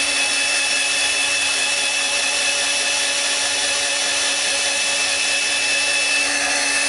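Ryobi 12V cordless drill running at its low-speed setting on a rebuilt battery pack, boring steadily into a wooden plank. The motor holds an even, unchanging whine under load.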